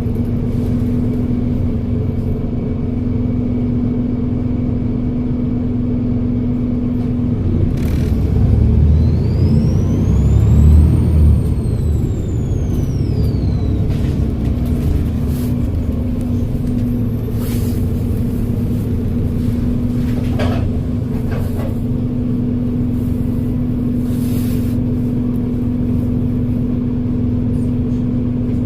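Volvo B7RLE bus's turbodiesel engine running steadily, then pulling harder about eight seconds in: a high turbo whistle rises and falls over about five seconds with louder engine rumble, before the engine settles back to its steady note.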